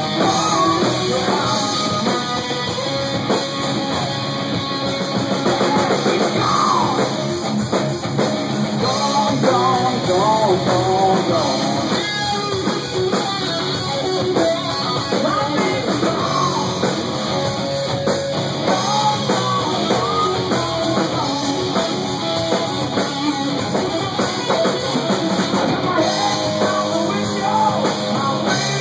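Live rock band playing loud: electric guitar lead with bent, gliding notes over a drum kit.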